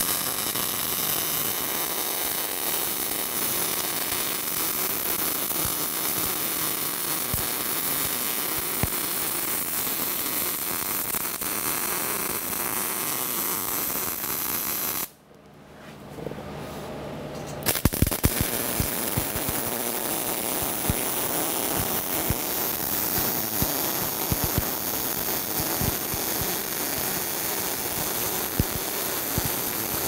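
MIG welder arc crackling steadily as it welds a seam in 1/8-inch steel strip. The arc cuts off about halfway through, and after about two seconds of quiet it strikes again with sharper pops.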